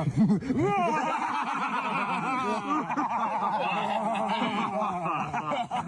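Several people laughing over one another, without clear words.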